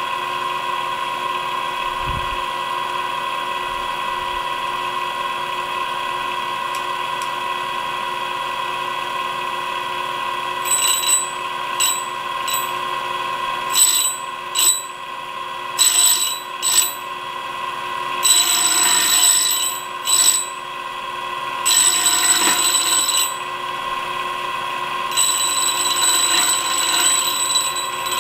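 Shop-built tool-and-cutter grinder spindle running with a steady high whine. From about ten seconds in, a drill bit in a drill-grinding fixture is touched against the flaring cup wheel in a run of short grinding bursts, then longer passes of one to three seconds, grinding the bit's primary relief facet.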